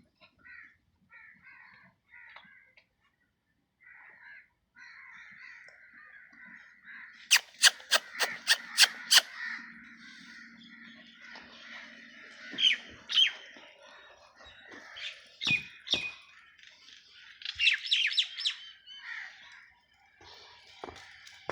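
Birds calling: a quick run of about seven sharp calls, then scattered chirps and calls.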